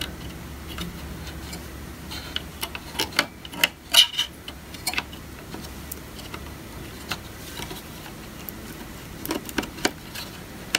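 Scattered small clicks and taps as a RAM stick is pressed into a memory slot on a Power Mac G4 Cube's logic board. A cluster comes from about two to five seconds in, the loudest about four seconds in, and a few more come near the end.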